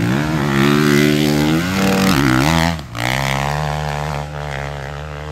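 Dirt bike engine revving hard as it charges up a steep dirt hillclimb. It holds at high revs, its pitch dips and climbs again about two seconds in, and it breaks off briefly near three seconds before running on.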